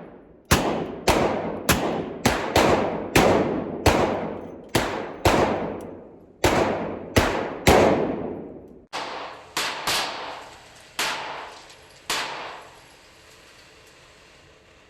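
Handgun gunshots fired in quick succession, each one echoing out, loud shots about every half second for the first eight seconds. A few quieter, more spaced shots follow until near the end, when the shooting stops.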